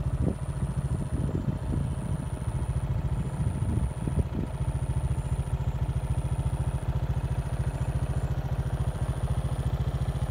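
Motorcycle engine idling with a rapid, even putter. Some uneven louder bursts sit over it during the first four or so seconds.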